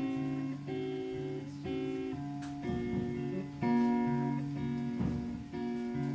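Live band music: an electric guitar and a keyboard playing sustained chords in an instrumental passage, the chord changing about every second.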